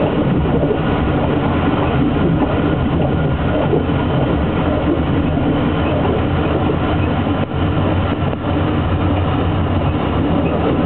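Train running along the track, heard from on board: a steady rumble and rattle of the wheels on the rails.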